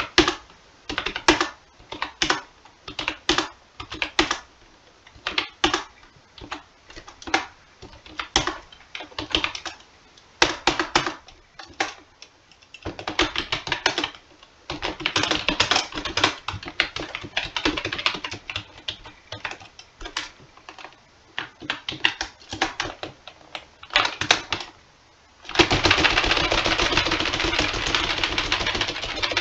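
Computer keyboard typing: short clusters of key clicks separated by brief pauses, then faster, more continuous typing. About 25 seconds in it turns into a dense, unbroken clatter of keys being mashed at random.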